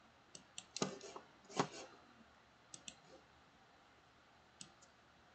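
Faint computer mouse clicks, single and in quick press-and-release pairs, scattered over the first five seconds, with two heavier knocks, likely the keyboard's Ctrl key, about one and one and a half seconds in.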